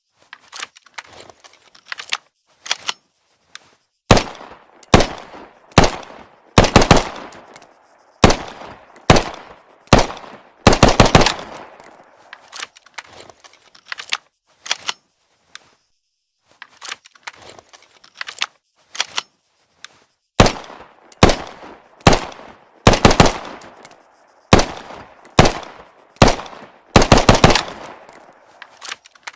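Automatic pistol sound effect: gunshots fired in quick groups of two to four with short pauses between, each shot followed by a brief echo. The first few seconds hold only a few quieter shots.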